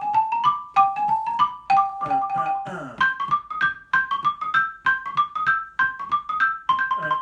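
Xylophone played with mallets: a quick syncopated exercise of short rising runs, about four strokes a second, each note ringing briefly.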